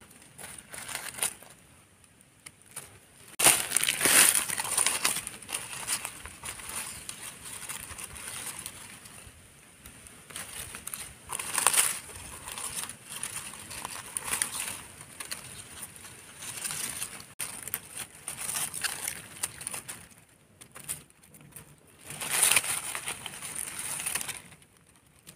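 Dry eucalyptus leaf litter crunching and rustling as a hand pushes through it to pick mushrooms, in irregular bursts. The loudest bursts come about four seconds in, around the middle, and a few seconds before the end.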